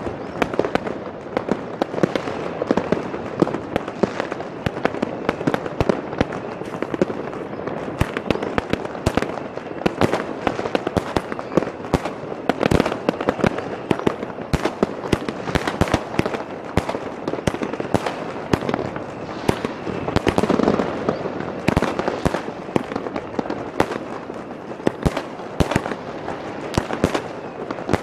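A consumer firework from a '4 Seasons' set firing from the ground close by: a steady crackle of sparks cut by many sharp bangs, with more fireworks going off in the distance all around.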